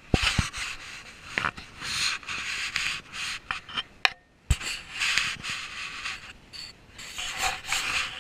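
Close rustling and rubbing right at the microphone in irregular bursts, broken by a few sharp knocks. The loudest knocks come just after the start and about four and a half seconds in.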